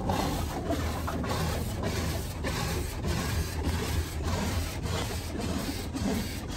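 Automatic car wash heard from inside the car: water spraying and the wash machinery working over the car, a steady noisy wash over a low rumble.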